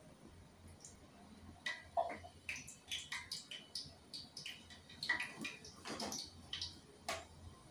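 Bay leaves, cinnamon and cloves frying in hot oil and ghee, crackling with irregular small pops.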